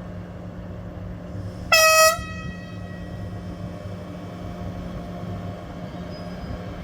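Train horn giving one short, single-note greeting toot about two seconds in, over a steady low hum.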